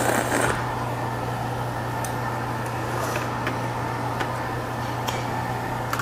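A slurp of naengmyeon cold noodles and broth from a steel bowl, ending about half a second in. Then a steady low hum fills the room, with a few light clicks of metal chopsticks against the steel bowl.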